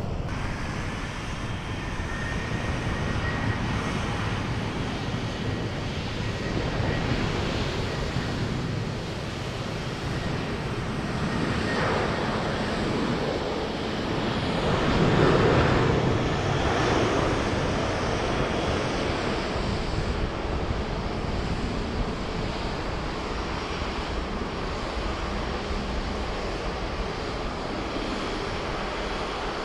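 Jet airliner engines running, a steady rumble that swells to its loudest about halfway through, with a faint engine whine in the first few seconds. Wind noise on the microphone runs underneath.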